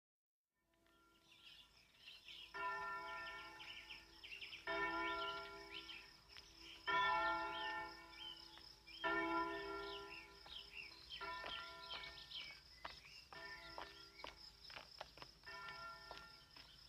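A single church bell tolling slowly, one stroke about every two seconds, seven strokes in all. Each stroke rings on and fades, and the last few are softer.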